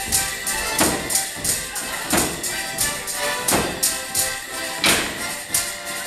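Live folk dance tune for border morris, played with a steady beat, with sharp percussive strikes from the dancers landing about every three quarters of a second.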